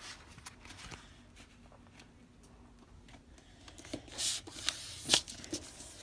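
A sheet of paper being folded and creased flat by hand: soft rustling and small ticks, with two louder brushing swipes about four and five seconds in.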